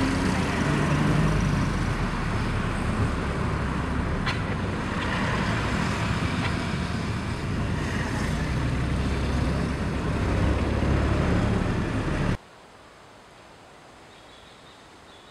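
Steady road and engine rumble inside a moving passenger vehicle, with a light click about four seconds in. The rumble cuts off suddenly about twelve seconds in, leaving a faint, quiet outdoor background.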